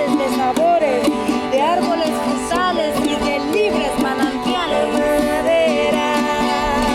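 Music: a folk-style passage with plucked strings and a melody line that bends up and down in pitch.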